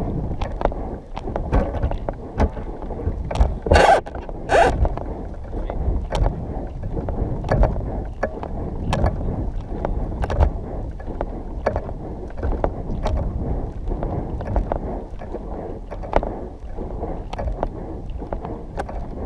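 Footsteps crunching on dry dirt at a walking pace, about one a second, under a steady rushing noise. Two louder scrapes come about four seconds in.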